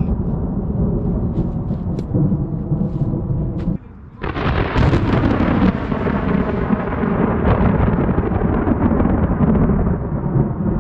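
Thunder: a low rumble, then about four seconds in a sudden loud clap that rolls on and slowly fades.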